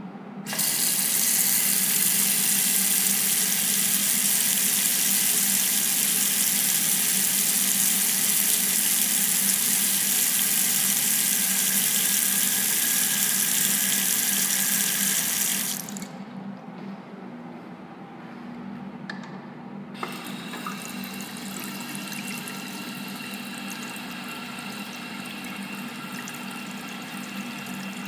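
Restroom sink faucet turned on, water running hard from the spout into a porcelain basin and down the drain. About fifteen seconds in the flow stops abruptly. A few seconds later a quieter, gentler stream starts again with a click.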